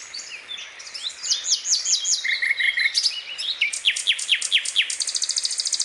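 Several birds chirping and calling in quick, varied phrases: short trills, a run of falling whistled notes, and a high buzzy trill near the end.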